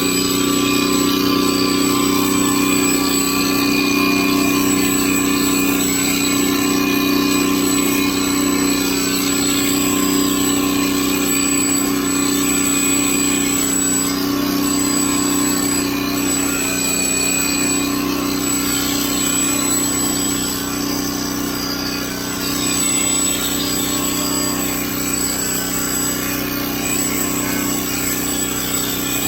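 Electric hair clipper running steadily with an even buzz and a thin high whine, cutting a goat's hair.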